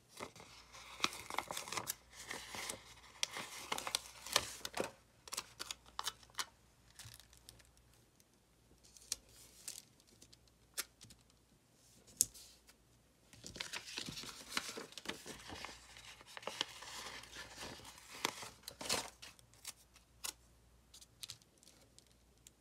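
Paper stickers being peeled from their backing sheet and pressed onto a planner page: irregular peeling, rustling and crinkling with scattered light taps, in bursts with a quieter stretch midway.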